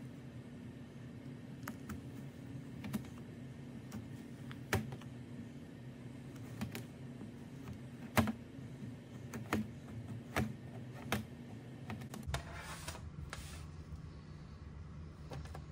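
Plastic cutter slicing through kinetic sand: irregular crisp clicks as the blade presses down through the block, over a faint steady hum. About three-quarters of the way through, the clicks give way to a soft rustle as hands press the sliced sand together.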